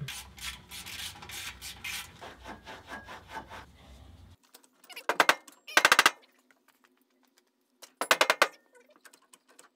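Hand tools clicking on the e-brake cable bracket bolts on a Nissan 240SX rear subframe. Then come four short bursts of a rapid mechanical rattle, typical of an impact wrench running bolts in.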